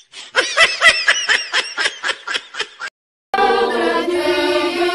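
A person laughing in a quick run of repeated, high-pitched ha-ha pulses, about five or six a second, for roughly three seconds before it cuts off. After a short silence, music with held notes starts.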